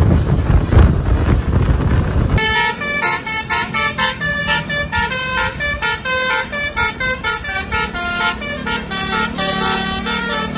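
Wind buffeting the microphone, then about two seconds in a bus's telolet basuri musical horn starts playing a fast tune of short notes that keeps changing pitch.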